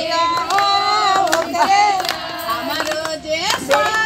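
A group of women singing a traditional folk song together with long, held sung lines, and hand claps here and there.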